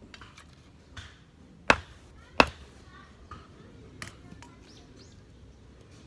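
Sharp knocks of wood being struck: two loud ones a little under a second apart, with a few fainter taps around them.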